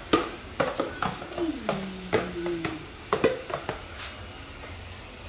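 Kitchen utensils knocking against a pot and dishes: a run of sharp clinks through the first three and a half seconds, then quieter.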